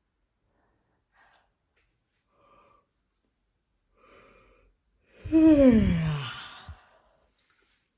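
A woman yawning aloud: after a few faint breaths, one long voiced yawn about five seconds in, its pitch sliding steadily down over about a second and a half.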